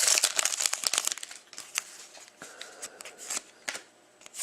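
Hockey trading cards being handled and slid through the hands: a dense papery rustle in the first second or so, then sparser light clicks and rustles.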